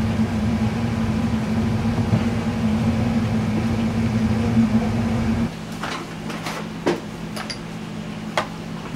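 Steady low hum of kitchen equipment running. The hum drops away about five and a half seconds in, leaving a quieter room with a few light clicks and taps.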